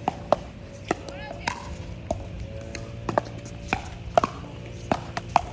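Pickleball paddles hitting a plastic pickleball in a rally: a run of sharp pops, roughly one every half second to second.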